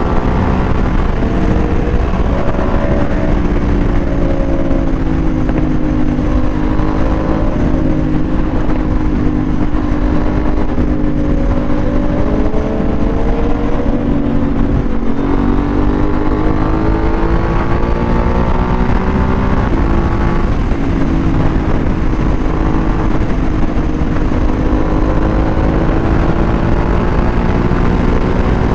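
Motorcycle engine running hard at highway speed, its note sliding slowly down and then stepping up in pitch about halfway through and again a few seconds later.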